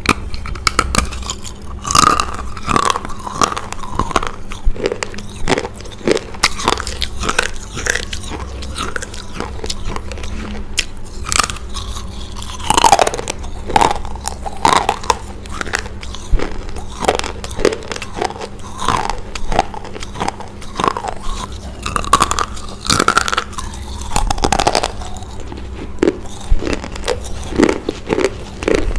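Biting and chewing dry baked-clay rolls: a dense run of sharp crunches and crackles that keeps going with every bite.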